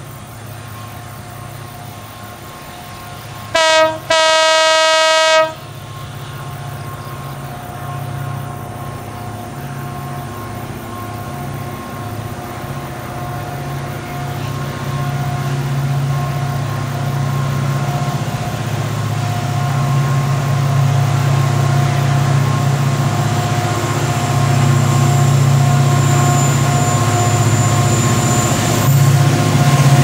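Double-headed CC 205 diesel-electric locomotives on a long coal train: a short horn blast then a longer one of about a second and a half, about four seconds in. After it, the locomotives' low engine running grows steadily louder as the train approaches.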